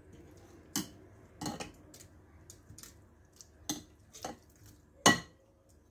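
Metal spoon clinking against glassware as peeled orange segments are scooped from a glass bowl and tipped into a glass blender jar: a handful of separate knocks, the loudest near the end.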